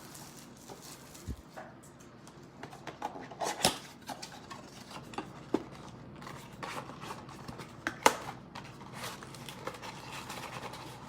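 Scattered light clicks, taps and rustles of trading-card packs and a cardboard blaster box being handled and opened, with two sharper snaps, one a few seconds in and one past the middle.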